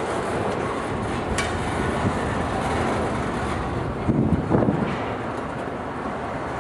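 Double-stack intermodal well cars rolling slowly past on the rails: a steady rumble of wheels on track, with a sharp click about a second and a half in and a few heavier clunks around four seconds in.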